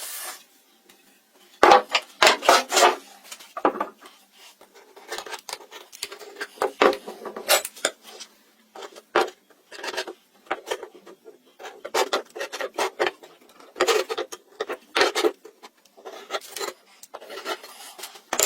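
Wood being rubbed and scraped by hand in short, irregular strokes, like rasping or sanding, with brief pauses between runs of strokes.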